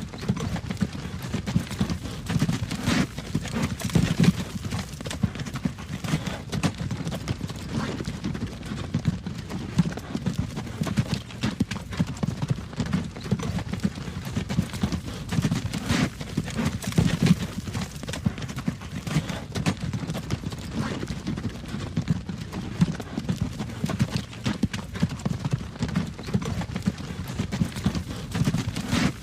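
Horse-drawn wagon rolling along a road: continuous clip-clop of hooves with the low rumble of the wagon running beneath.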